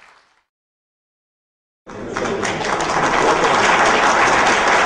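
Applause from a hall full of people, fading out at the start. After about a second and a half of dead silence it comes back suddenly, loud and steady.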